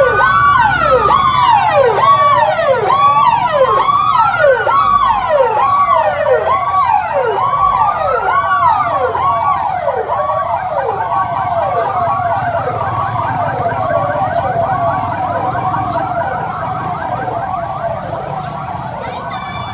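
Several emergency-vehicle sirens on passing fire and police vehicles sounding at once: a fast yelp that repeats about twice a second over slower rising-and-falling wails. They grow gradually quieter over the last several seconds as the vehicles move off.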